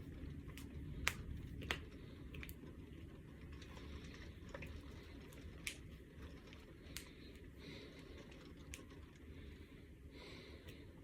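Finger knuckles cracking: scattered sharp pops, the two loudest within the first two seconds, then a few more spaced out over the following seconds.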